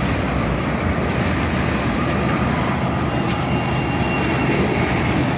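Freight train of tank cars rolling past close by: a steady rumble of steel wheels on the rails. A faint high squeal lasts about a second from roughly three seconds in.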